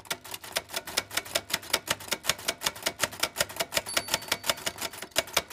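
Typing sound effect in the style of a typewriter: a fast, even run of sharp key clicks, about seven a second, over a faint low hum.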